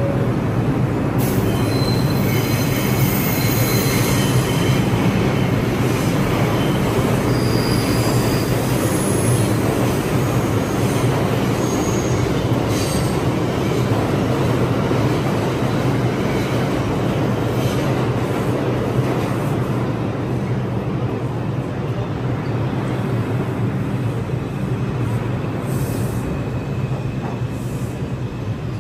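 NYC subway R142-series train running at speed, a steady rumble with a low hum. Its wheels squeal in high tones through roughly the first half.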